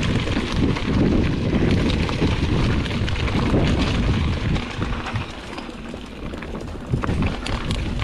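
Mountain bike descending a dirt trail: wind buffeting the handlebar-mounted camera microphone, tyres rumbling over dirt and leaf litter, and the bike rattling and clicking over bumps. It eases off for a couple of seconds past the middle, then a sharp knock as it picks up again.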